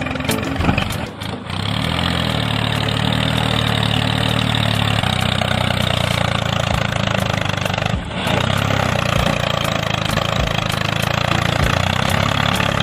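Small engine running steadily, its level dipping briefly about a second in and again near eight seconds.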